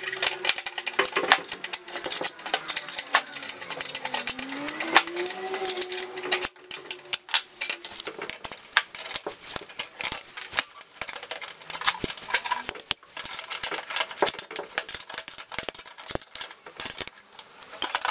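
Hand tools clicking and clinking on steel: water-pump pliers and a spanner working the nuts and bolts of a stainless steel knife-grinding jig as it is tightened together. Rapid, irregular small metallic clicks and knocks throughout.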